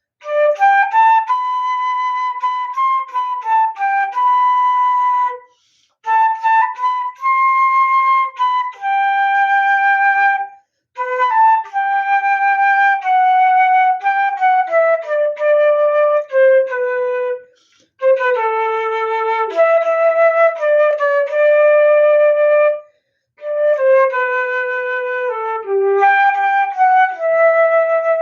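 Flute playing a slow melody, held notes in phrases of a few seconds, each ending in a brief silent breath pause.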